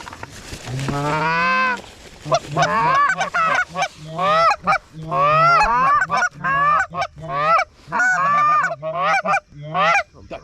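Canada geese honking: one drawn-out honk about a second in, then a rapid string of short honks and clucks, about two to three a second, to near the end.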